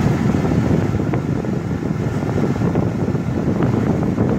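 1966 Admiral Royal 106 window air conditioner running with its blower pushing air straight out of the discharge grille onto the microphone, giving a loud, steady rushing noise.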